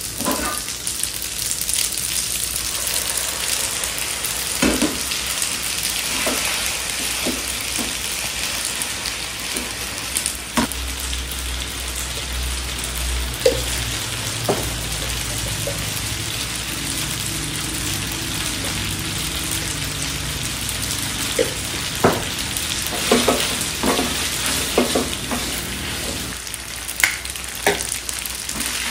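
Spaghetti and tuna sizzling steadily in a hot frying pan, with scattered taps and scrapes as a silicone spaghetti server stirs and tosses the noodles against the pan. The taps come in a quick cluster in the last several seconds.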